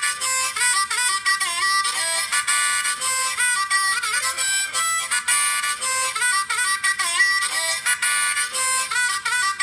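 Harmonica playing a fast tune of chords and single notes, with notes repeatedly bent down and back up in pitch.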